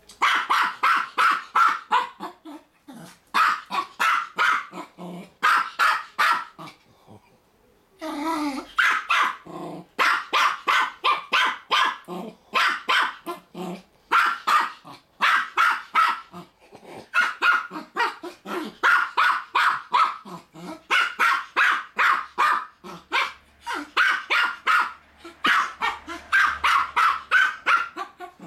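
Keeshond barking at a hedgehog in fast runs of sharp, high-pitched yaps, about five a second, broken by short pauses and one longer pause about a third of the way through.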